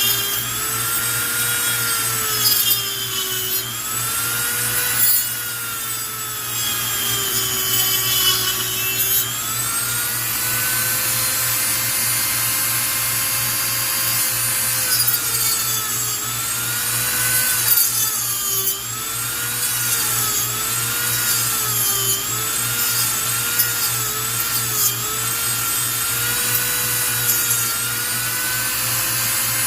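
High-speed rotary cutting tool cutting into the plastic case of a turn signal relay, its whine repeatedly dipping in pitch as it bites and recovering as it eases off.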